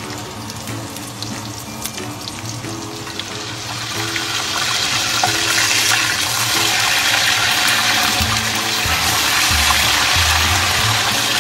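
Coated pork chops frying in a wok of hot oil, a steady sizzle that grows louder about four seconds in, with background music underneath.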